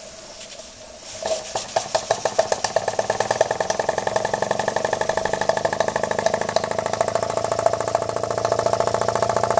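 Scratch-built double-acting uniflow-type model steam engine starting again under steam: a faint hiss, then about a second in a run of exhaust chuffs that quicken over the next couple of seconds into a fast, steady beat.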